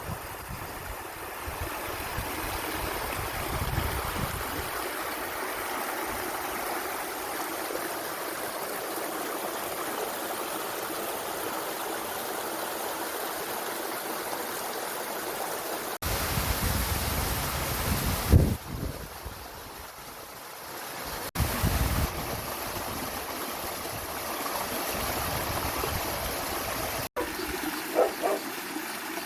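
Small spring-fed creek running steadily over its bed. The sound changes abruptly a few times.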